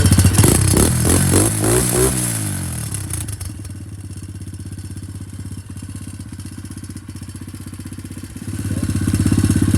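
125cc dirt bike engine revving up and down, then running more quietly and steadily for several seconds before it grows loud again near the end.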